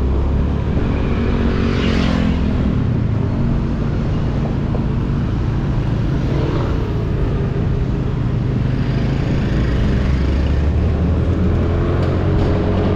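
Motor scooter engine running steadily under way, with wind and road noise on the microphone; the engine pitch shifts a little about two seconds in and again in the second half as the speed changes.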